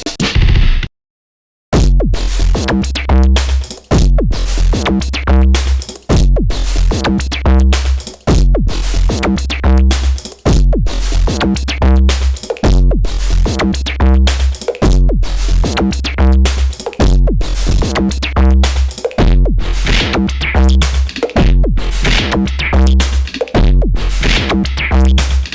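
Electronic beat from a UVI Falcon sampler instrument: a drum-machine groove over deep bass, repeating in phrases of about two seconds. It starts after a brief gap about a second in.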